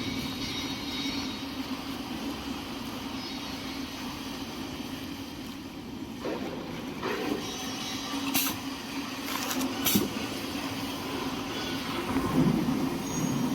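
Manual toilet paper and kitchen towel band saw cutting machine running with a steady hum, with a few sharp knocks in the middle.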